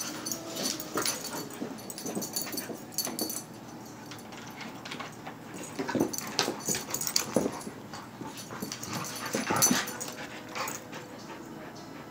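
German Shepherd puppies playing with a plastic frisbee: scattered knocks and scuffles, and a few faint short whines.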